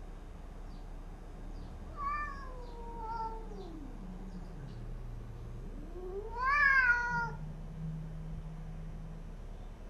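Domestic cat yowling and growling: a drawn-out yowl about two seconds in that falls into a low growl, then a louder yowl about six seconds in that rises and falls, followed by another low drawn-out growl. A hostile warning between two cats, one hiding in the cat house as the other pushes its face at the doorway.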